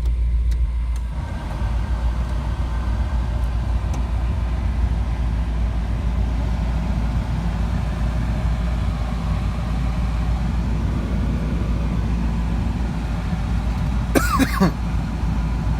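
Truck engine idling steadily soon after starting, with the power steering pump not happy. Near the end a brief sharp sound slides down in pitch.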